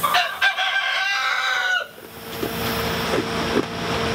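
A rooster crows once, a single drawn-out call of nearly two seconds that cuts off sharply. A steady hum returns beneath it about halfway through.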